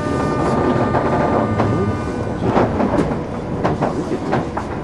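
Chuo Rapid Line electric commuter train heard from on board: a steady hum and rumble of the running train, then from about halfway through a quick series of sharp clicks as the wheels pass over rail joints.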